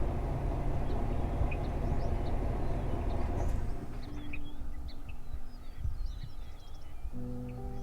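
A low, noisy rumble that cuts off abruptly a little before halfway. Scattered short chirps of small birds follow, and steady music notes come in near the end.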